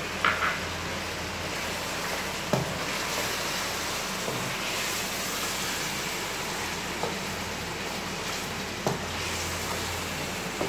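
Chicken pieces frying and sizzling in oil in a karahi over high heat while a spatula stirs them, with a few sharp knocks of the spatula against the pan.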